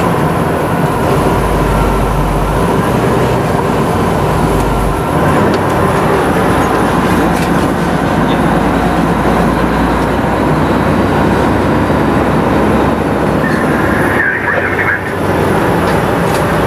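Steady engine and road noise of a fire truck on the move, heard from inside the cab, with a low engine hum throughout. The sound dips briefly about two seconds before the end.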